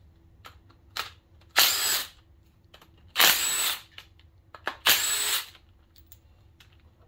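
Cordless power driver spinning in three short bursts of about half a second each, with a couple of brief blips between them, backing out the bolts holding the oil pump on a 5.3 L LS V8.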